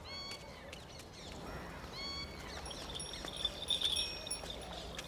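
Quiet rural outdoor ambience: two short pitched bird calls about two seconds apart, then a light, high tinkling like small bells through the second half.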